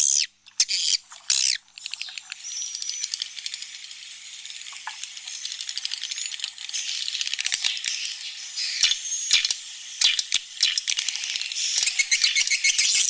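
A dense flock of edible-nest swiftlets twittering: rapid trains of high, buzzy chirps and clicks with a few short whistles, growing louder near the end. It is a swiftlet 'inap' (roosting) call, a colony of chicks and adults, of the kind played inside swiftlet houses to make the birds feel safe.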